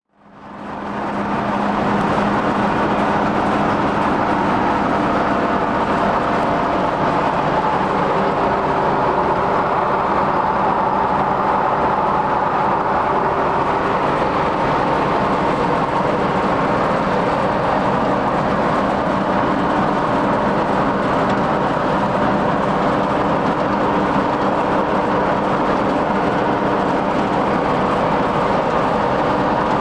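Gehl 115MX grinder mixer running: a steady mechanical drone that fades in over the first second or two and then holds level.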